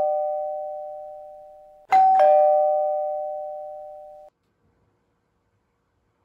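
Two-tone ding-dong doorbell chime, a higher note followed by a lower one, ringing down and then struck again about two seconds in; the second ring cuts off suddenly.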